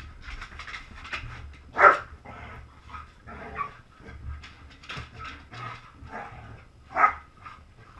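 Two dogs play fighting: a loud bark about two seconds in and another near the end, with quieter short barks and vocal noises from the tussle in between.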